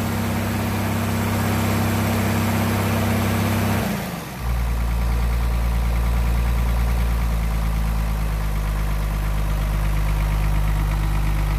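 Komatsu PC220LC excavator's diesel engine running at raised throttle, then throttled down about four seconds in with a brief dip, settling to a steady idle.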